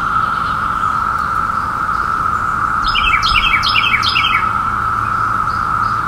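Chorus of Brood X periodical cicadas: a very loud, constant buzz that stays steady in pitch. About three seconds in, a songbird sings a quick run of five or six short falling notes over the buzz, lasting about a second and a half.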